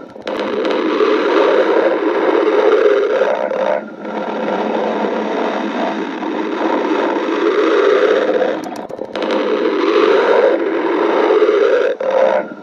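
A woman's stomach growling, recorded close up: long, continuous growling with a few short breaks.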